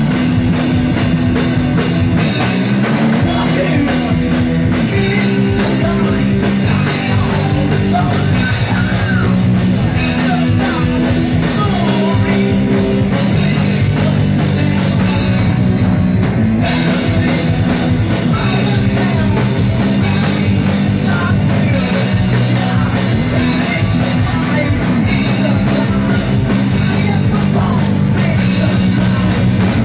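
Rock band playing a song with drums, distorted guitar and bass, and a singing voice over it. The music is loud and steady, and the bass notes change every second or two.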